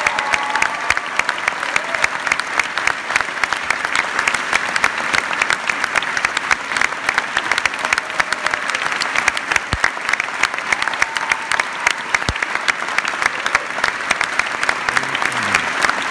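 Theatre audience applauding steadily, a dense, even clapping from many hands throughout.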